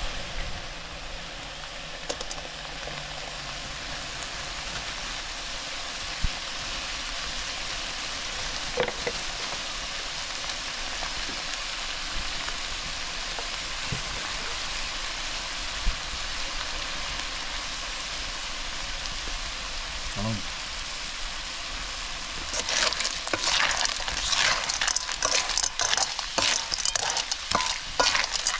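River snails frying with onions in a metal wok, a steady sizzle. About 22 seconds in, a metal ladle starts stirring, scraping and clinking against the wok.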